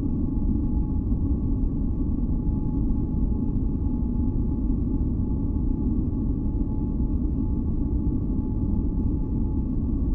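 Steady, unchanging deep rumbling noise, weighted to the low end like brown noise, with a few faint steady tones humming above it: a continuous noise track for sleep and sound masking.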